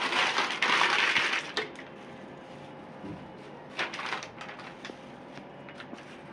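Kitchen storage containers and packets being handled: a rustle for about a second and a half, then a few light clicks and knocks.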